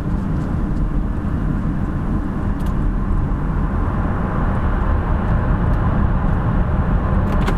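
Steady drive noise of a Range Rover Vogue V8 heard inside its cabin: a low engine and tyre rumble with road hiss. The hiss grows a little fuller a few seconds in as the car enters a tunnel.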